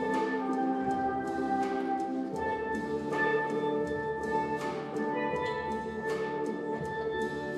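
Steel drum ensemble (steelpans) playing a slow, held melody over sustained chords, with light percussion strokes keeping a steady beat about every three-quarters of a second.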